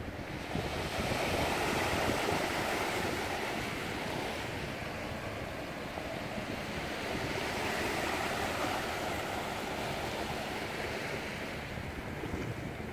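Small waves washing on the shore, with wind on the microphone. The wash swells twice, about two seconds in and again around eight seconds.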